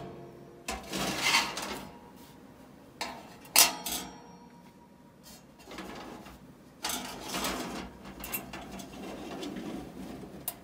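A toaster oven's thin sheet-metal tray being slid and handled on its rack: a few separate metallic clatters and scrapes. One comes about a second in, a short one at about three and a half seconds, and a longer one around seven seconds.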